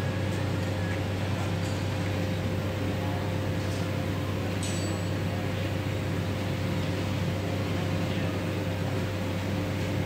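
Steady low machine hum with a constant mid-pitched tone running through it, and a faint click about halfway through.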